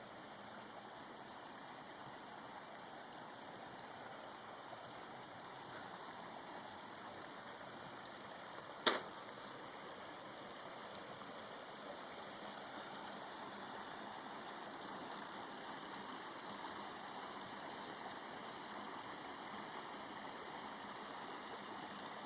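Faint, steady rush of flowing creek water, with one sharp click about nine seconds in.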